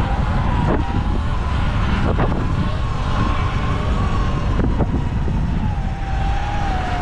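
Sur-Ron X electric dirt bike's motor whining as it is ridden on a wheelie, over heavy wind rumble on the microphone. The whine's pitch holds steady, then slides down over the last couple of seconds as the bike slows.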